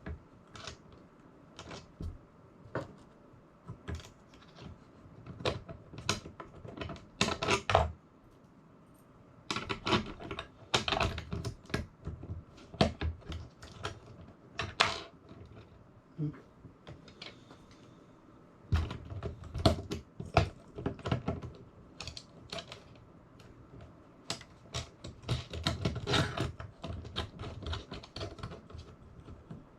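Tools and small hard parts being handled and set down: scattered clicks, clacks and knocks that come in clusters with short pauses.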